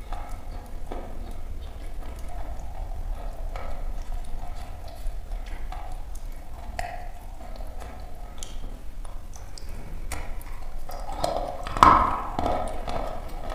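Close-miked crunching as a lump of dry chalk is chewed, an uneven stream of small crackling clicks. About twelve seconds in comes the loudest crack, as a fresh bite is taken from the lump.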